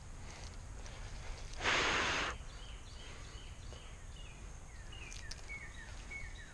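Small birds giving short, repeated downward-sliding chirps over a steady outdoor background. A brief loud hissing rush cuts in about two seconds in and lasts under a second.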